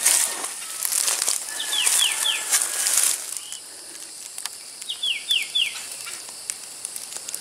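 Footsteps rustling and crunching through dry leaf litter and underbrush, loudest in the first three seconds, then quieter with scattered small clicks. A bird calls twice, each call a quick run of three or four short descending notes, at about two seconds and again at about five seconds.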